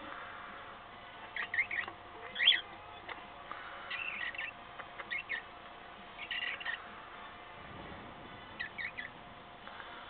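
Cockatiels chirping in the nest box: about six short clusters of high chirps spread over the stretch, the loudest about two and a half seconds in.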